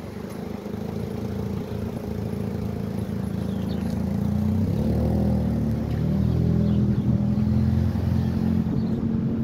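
A motor vehicle's engine running and growing steadily louder as it approaches. Its pitch shifts about halfway through, then it holds loud.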